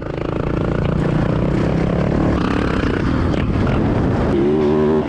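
Motorcycle engine running, fading in at the start, with the revs rising and falling near the end.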